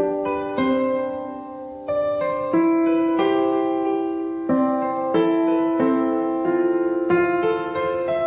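Background piano music: a slow melody of chords and notes, a new one struck about every second and left to ring.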